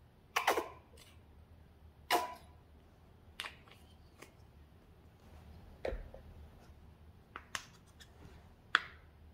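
Plastic squeeze tubes of cream and toothpaste being handled and squeezed onto slime: a scattered series of about eight short clicks and taps, the two loudest in the first two and a half seconds.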